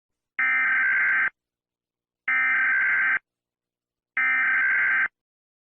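Emergency Alert System SAME data bursts, three short identical bursts of digital data tone about a second apart: the end-of-message signal closing an alert.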